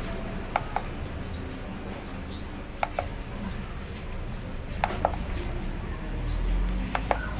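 Push-buttons of an SF-400 digital kitchen scale clicking: four press-and-release pairs about two seconds apart as the tare button zeroes the display.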